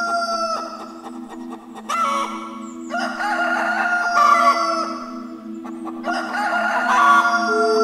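Roosters crowing several long crows in a row, over a steady low music drone.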